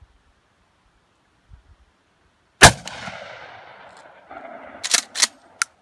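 A single pump-action shotgun shot about two and a half seconds in, its report trailing off in a long, fading echo. About two seconds later the pump is worked with two sharp clacks, back and forward, followed by a lighter click.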